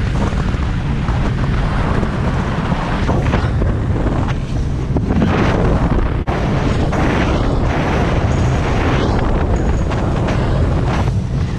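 Loud, steady wind buffeting the microphone aboard a Haynie 23 SuperCat bay boat running at speed, over the rush of water and the boat's motor.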